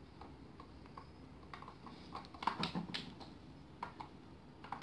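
Faint, irregular light clicks and taps of plastic Play-Doh toy pieces being handled on a tabletop, a little busier and louder about halfway through.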